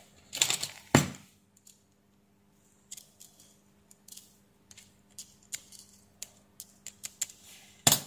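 Small metal parts of a TNC coaxial connector clicking and ticking as the back nut is turned by hand onto the threaded back shell: a louder rustle and click in the first second, then scattered light ticks, and a louder click near the end.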